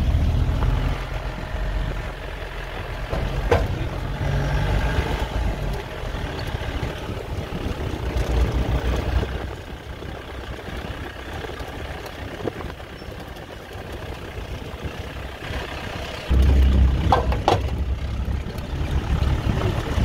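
Moving vehicle's engine and road noise heard from inside with the side window open, with wind rumbling on the microphone. The rumble eases off midway and comes back suddenly near the end.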